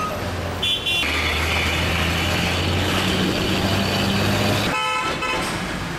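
Street traffic with a vehicle engine running steadily and two short vehicle-horn honks, one about half a second in and one about five seconds in.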